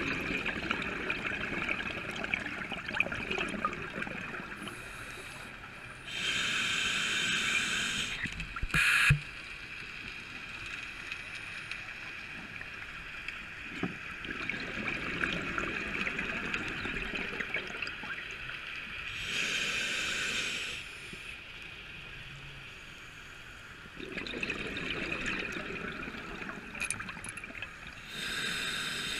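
Scuba regulator breathing heard underwater: three slow breaths, each a hiss of about two seconds and then a run of burbling exhaled bubbles. There is one sharp click about nine seconds in.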